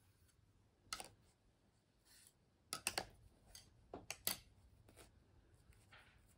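A few quiet, sharp clicks of bamboo double-pointed knitting needles knocking together and against a wooden table as they are pulled from a finished beanie and set down. There is one click about a second in, a quick cluster in the middle and two more a second later.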